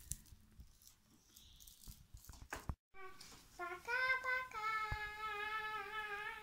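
A child's voice, after a few faint clicks, starts about three seconds in and rises into one long, steady sung note held to the end.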